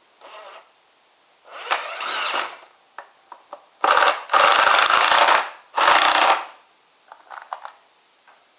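Cordless impact driver driving drywall screws into wood in several short bursts, its hammering rattle loudest in a long burst from about four to five and a half seconds in and a shorter one right after.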